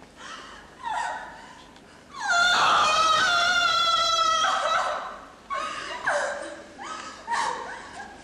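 A woman wailing in distress: a short cry, then one long high held wail, then several shorter cries that fall in pitch.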